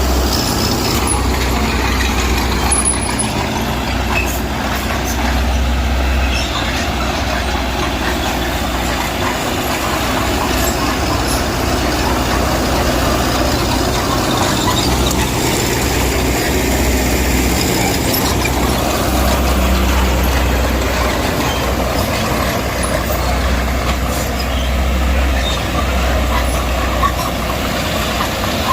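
Diesel engine of heavy earthmoving machinery running steadily, its low engine note swelling and easing a few times as it works under load.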